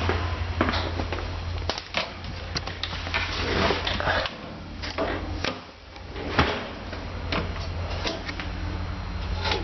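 Handling noises as parts of the unit go back in: a run of clicks, knocks and scrapes, with the loudest knock about six and a half seconds in, over a steady low hum.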